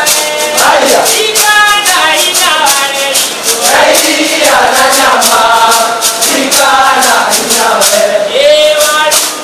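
A group of voices singing a song to a quick, steady shaken-rattle beat.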